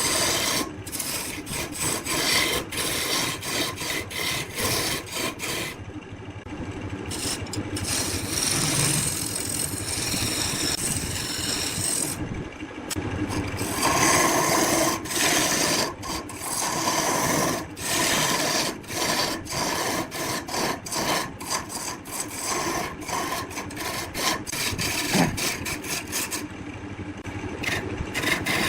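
Woodturning tool scraping against wood spinning on a lathe: an uneven, continuous rasping noise broken by many short clicks, with the hiss dropping out briefly three times.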